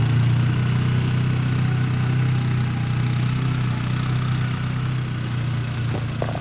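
Car engine running with a steady low hum, heard from inside the car.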